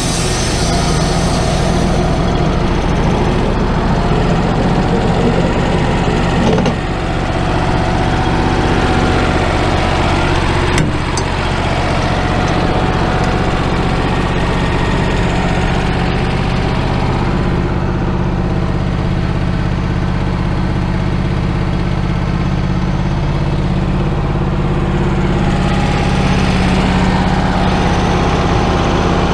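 The Kohler engine of a portable band sawmill runs steadily throughout. A brighter hiss in the first couple of seconds is the band blade finishing its cut.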